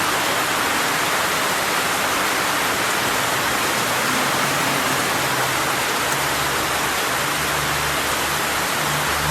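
Steady, continuous rain falling as an even hiss. A faint low steady tone comes in during the second half.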